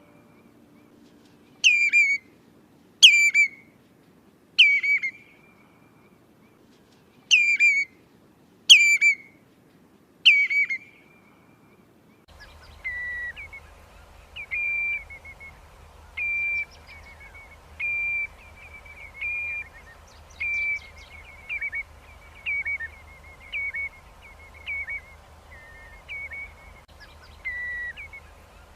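Recorded redshank calls played as a flock-calling lure: loud, sharp whistled calls dropping in pitch, about seven of them a second or so apart. About twelve seconds in, the recording changes to one with a steady hum and hiss under it, and the calls come shorter and more regular, roughly one every second and a bit.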